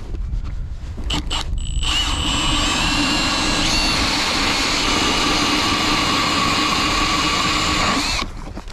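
Power ice auger drilling a hole through lake ice. The motor gives a few short blips about a second in, then runs steadily with a whine for about six seconds and cuts off.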